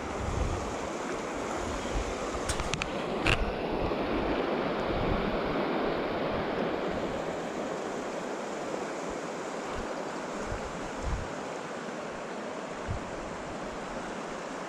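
Mountain river water rushing steadily over rocks, with a couple of brief clicks about three seconds in.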